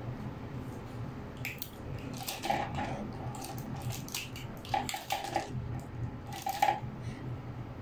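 Light clicks and clatters of small plastic toys (hollow balls and shape blocks stuck on a strip of clear tape) as a baby grabs and tugs at them. The clicks come in short clusters every second or so.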